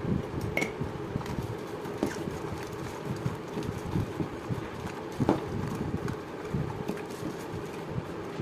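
Eggplant chunks tossed and rubbed by hand in a bowl, giving irregular soft knocks and clacks against the bowl, over a steady fan-like hum.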